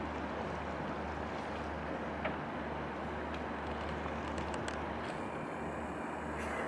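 Steady low drone of a boat's engine with an even rush of water and wind noise.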